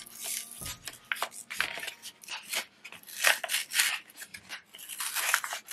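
Card-and-plastic retail packaging of a pencil being torn and peeled open by hand: irregular crackling and ripping, with louder tugs about three seconds in and near the end.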